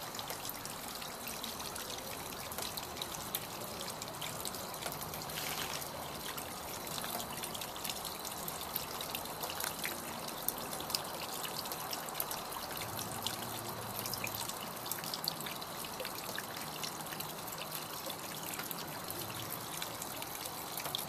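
Water trickling and splashing steadily from a small pump-fed fountain built into a Halloween prop.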